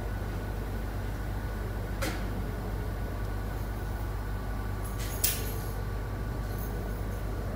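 Stock exhaust of a 2002 Audi S8 (D2) 4.2-litre V8 idling steadily, a low, even rumble through its 2.25-inch H-pipe, resonator and muffler. Two light clicks come about two and five seconds in.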